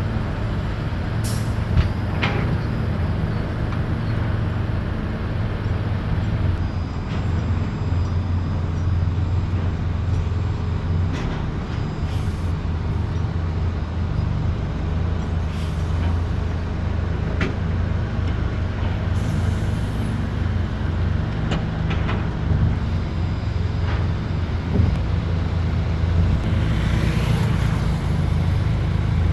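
Heavy diesel engines of large excavators and dump trucks running steadily at a work site, with scattered clanks and knocks and now and then a short hiss of air.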